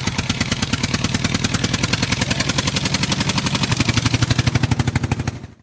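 Tractor engine running with a fast, even putter of about twelve beats a second, fading out near the end.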